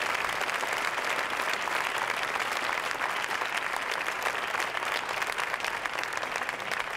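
An audience applauding, many hands clapping in a steady dense patter that eases slightly near the end.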